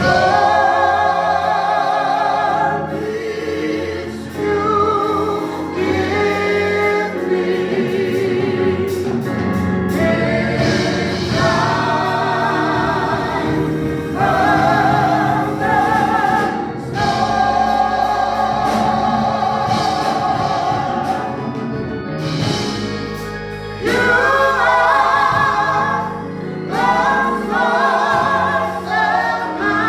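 A choir singing a gospel song with instrumental accompaniment, long held notes with vibrato.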